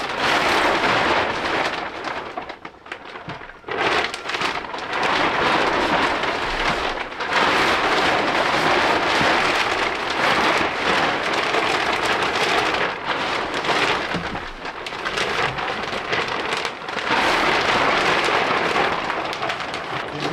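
Storm of heavy rain and gusting wind, the noise surging and easing every few seconds.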